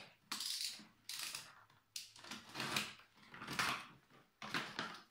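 A cardboard box being handled and shifted on a wooden table: a series of about six short scraping and rustling noises.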